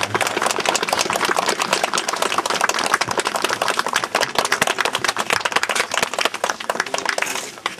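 A crowd applauding with dense clapping that dies away near the end.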